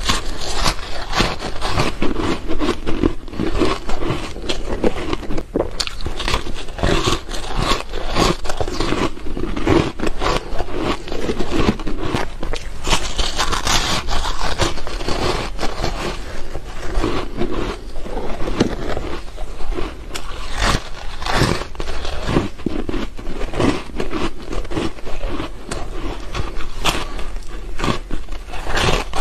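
Close-up biting and chewing of soft, frosty ice sticks: a dense, unbroken run of crunching and crackling.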